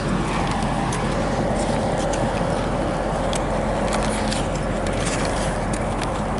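Steady vehicle rumble with scattered small clicks and rattles over it.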